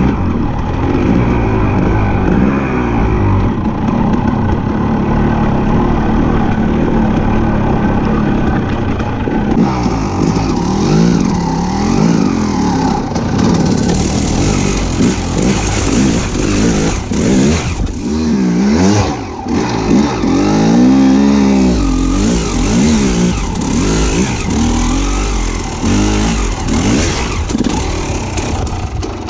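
A motor vehicle engine running and revving, its pitch rising and falling again and again, with a hiss joining in about a third of the way through.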